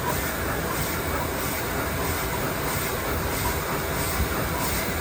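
Toilet-roll band saw cutting machine running: a steady mechanical noise with a faint hiss pulsing about twice a second.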